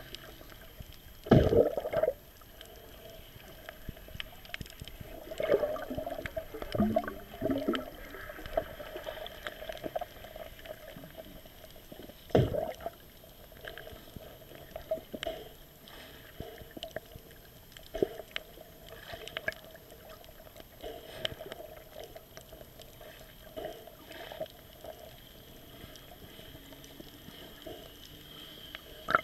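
Muffled underwater sound picked up by a camera below the surface: gurgling water with scattered dull knocks and thumps, the loudest about a second in and again near the middle.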